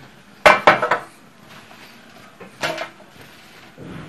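Metal baking trays clattering as bread cubes are tipped from one tray onto another: a quick cluster of sharp knocks about half a second in, another knock just past the middle and a softer one near the end.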